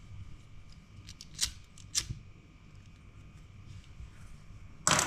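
Small handling noises from tying a fishing rig by hand: two short sharp clicks, then a louder brief scrape or snap near the end.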